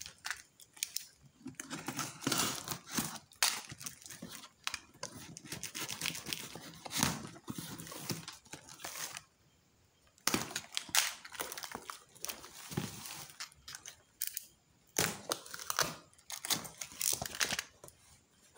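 Packing tape and cardboard being cut with a utility knife and torn off a box, with crinkling plastic wrapping: irregular tearing, scraping and rustling with a short pause about halfway through.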